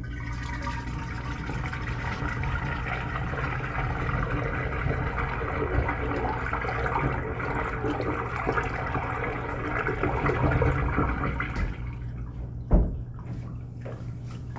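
Toilet running water: a steady rush of water for about twelve seconds that then stops, a single thud, then a faint trickle.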